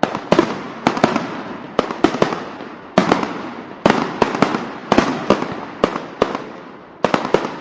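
Firecrackers bursting: irregular sharp bangs, often two or three in quick succession, each trailing off in a long echo.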